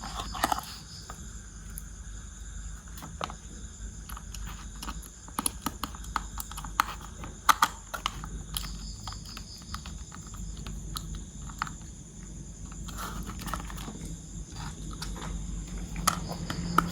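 Small plastic toy parts and packaging being handled: irregular light clicks and taps, a few sharper ones about halfway through and near the end, over a steady low hum.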